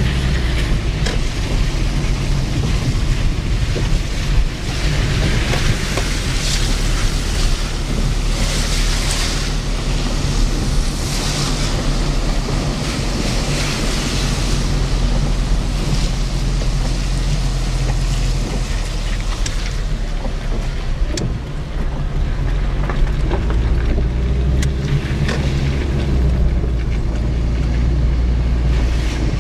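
Steady low rumble of a car's engine and road noise heard inside the cabin while driving on a wet road, with a hiss of tyres on wet pavement that swells between about five and fifteen seconds in.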